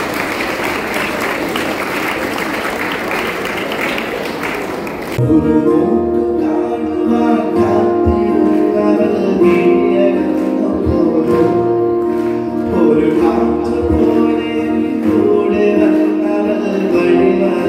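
Audience applause for about five seconds, then a sudden cut to a man singing into a microphone over instrumental accompaniment, heard through a PA system.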